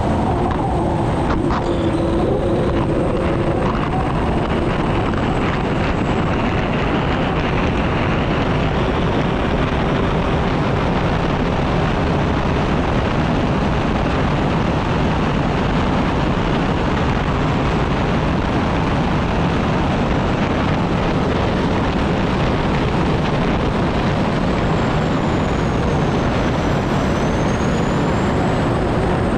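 Unlimited hydroplane's Lycoming T55 turbine engine running at racing speed, heard onboard as a steady, loud, dense rush. A faint high whine dips in pitch and recovers near the end.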